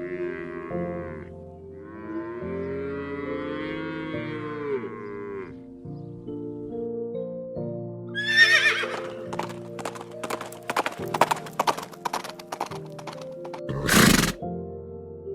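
Horse whinnying over background music: a short call at the start, a long wavering call, then a falling, quavering whinny about eight seconds in. A run of sharp irregular knocks follows, then a short loud burst near the end.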